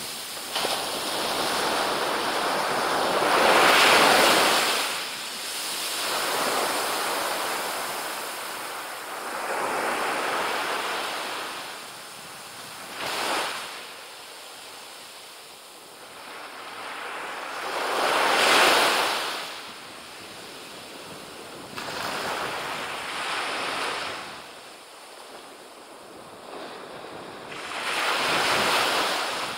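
Small waves breaking and washing up a sandy beach: a hiss of surf that swells and falls every few seconds, the loudest breakers about 4 seconds in, about two-thirds through and near the end.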